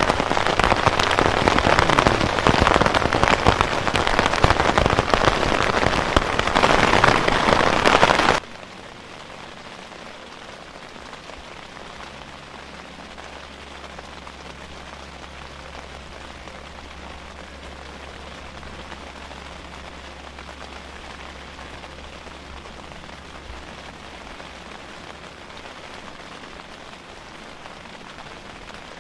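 Hail and rain falling hard outside an open tent, a loud, dense clatter. About eight seconds in it cuts off abruptly to a much quieter, steady sound of rain on the tent, heard from inside.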